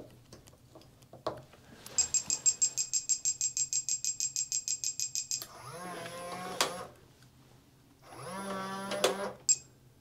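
Lockly smart deadbolt powering up after its last battery goes in with the program button held: a rapid string of electronic beeps, about eight a second for three and a half seconds. Then its small motor runs twice, about a second each, driving the bolt out and back, with a click near the end.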